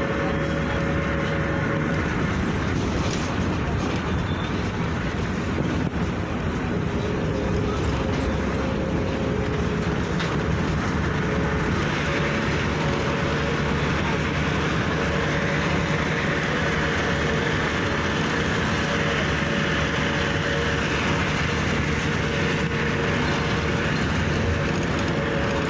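Steady running noise of a moving vehicle, an even rumble with a faint steady hum through it.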